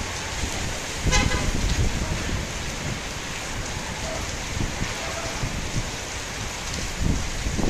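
Steady rain falling, with gusts of wind buffeting the microphone about a second in and again near the end. A short vehicle horn toot sounds about a second in.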